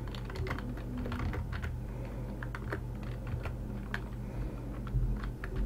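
Computer keyboard typing: scattered single keystrokes at an irregular pace, with a faint steady low hum underneath.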